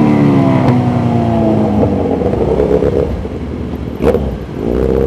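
Motorcycle engine running in traffic, its pitch falling as it slows over the first couple of seconds, then picking up again near the end, with a sharp click about four seconds in.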